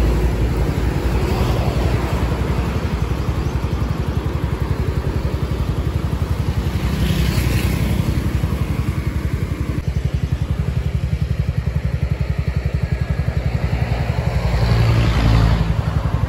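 Motorcycle engine idling with a steady, fast low pulse, which swells louder briefly near the end.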